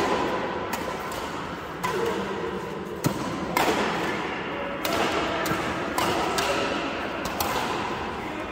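Badminton shuttlecock struck back and forth by rackets in a doubles rally: a string of sharp cracks about once a second, over a steady hall hubbub.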